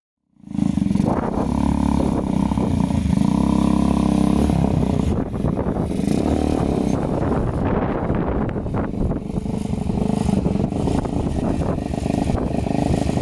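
The home-built 4WD Power Wheels FJ40 kart's petrol engine running and pulling the kart slowly up onto a car trailer. It cuts in suddenly about half a second in and runs steadily, its note varying a little from the middle on.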